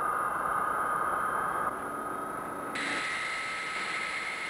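Jet engines of the Boeing 367-80 (Dash 80), Pratt & Whitney JT3 turbojets, running on the ground: a steady rush with a high whine. The whine steps up to a higher pitch abruptly near three seconds in.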